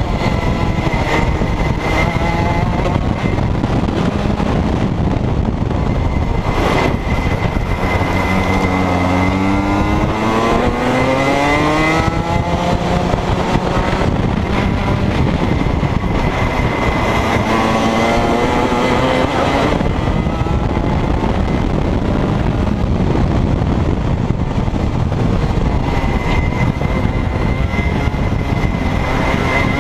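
Rotax 125cc two-stroke kart engine at racing speed, heard from on board. Its pitch climbs hard twice, about 8 seconds in and again about 16 seconds in, as the kart accelerates out of corners, and drops back in between when the driver lifts off and brakes.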